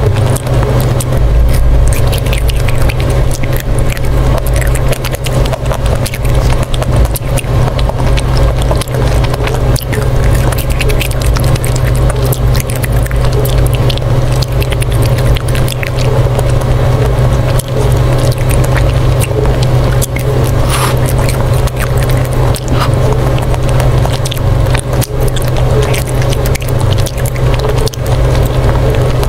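Close-up biting and chewing of a coated ice cream bar, with many crisp clicks as the shell cracks. A loud steady low hum runs underneath.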